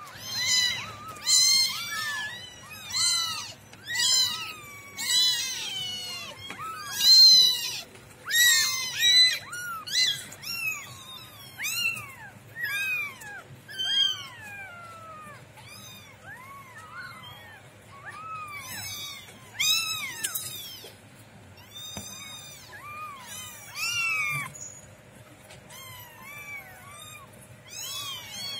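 A litter of young kittens mewing over and over, several at once, in high-pitched cries that rise and fall; the calls are crowded and loudest in the first half and thin out later. These are hungry kittens crying to be fed.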